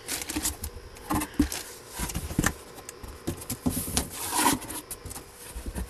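Rummaging through boxes of stored items by hand: irregular knocks, scrapes and rubbing as things are moved and shifted.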